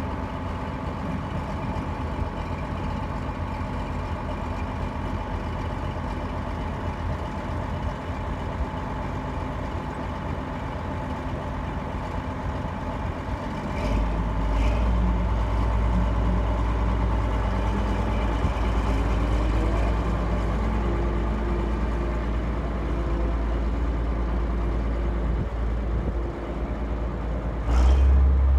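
Truck engine running steadily. A deeper, louder drone comes in about halfway, and it steps up again just before the end.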